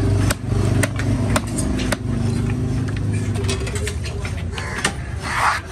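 Open-air fish market ambience: a steady engine hum under scattered sharp clicks and knocks, with a brief burst of noisier sound near the end.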